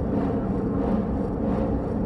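Steady low rumbling drone with faint held tones, a dark ambient horror sound effect.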